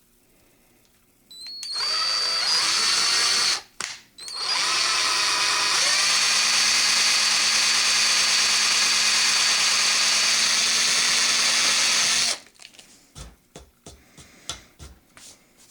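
Electric drill with a 5/32 bit boring a pilot hole into a wooden gun stock, through a dowel plug filling a stripped screw hole. It spins up about a second in, stops briefly, then runs steadily for about eight seconds before cutting off, followed by a few light knocks.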